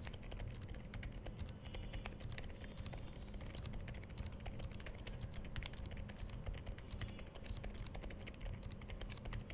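Continuous typing on a Monsgeek M3W mechanical keyboard fitted with Akko Silent Penguin tactile switches, whose stems have silicone dampeners. The keystrokes come several a second, quiet and damped, with no sharp clack.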